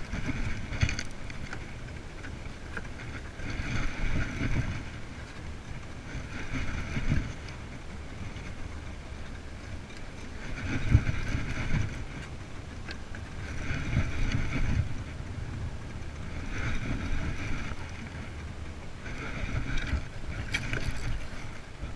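Heavy spinning reel cranked in repeated bursts of about a second, every few seconds, with low wind rumble on the microphone.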